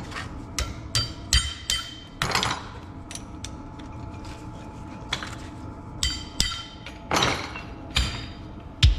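Metal clinks, taps and knocks of a Garrett T04E turbocharger being worked apart by hand on a workbench, as its housing is separated from the core to reach the bearings. Irregular, some with a short metallic ring, and with a couple of longer scrapes.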